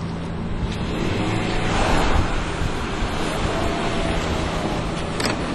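A 4x4's engine running steadily, with wind rushing on the microphone that swells about two seconds in. A couple of sharp clicks come near the end.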